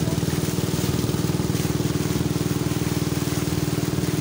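Steady engine drone of the motorboat towing an inflatable banana boat at speed, with a fast, even throb and a haze of wind and water noise above it.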